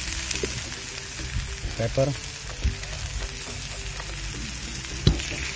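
Diced vegetables sautéing in a nonstick frying pan with a steady sizzle, stirred with a spatula that knocks and scrapes against the pan a few times. The sharpest knock comes about five seconds in.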